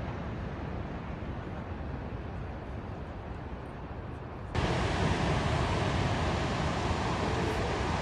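Steady rush of ocean surf and wind on the microphone, jumping suddenly louder and brighter about halfway through.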